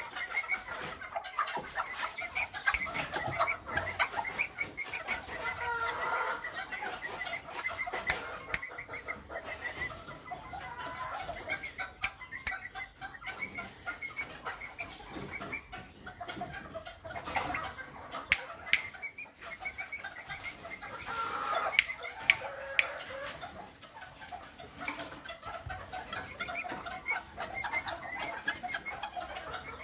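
Chickens clucking and calling continuously, with scattered sharp clicks.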